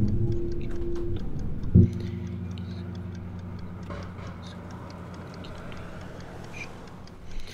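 Clock ticking steadily. About two seconds in, a low sustained note sounds with a sharp attack and slowly fades.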